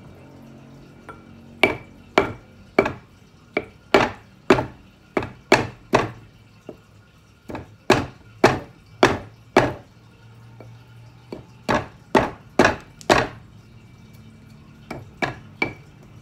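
Stone pestle pounding in a stone mortar (ulekan and cobek), crushing chilies and a lump of brown sugar: sharp knocks about two a second, in runs of several strokes with short pauses between.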